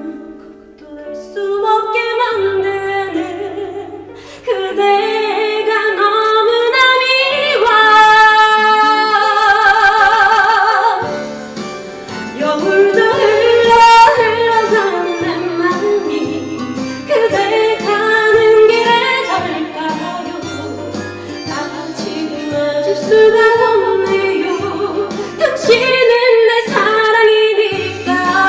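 A woman singing a trot song with vibrato over a recorded backing track with a bass line and a swing rhythm.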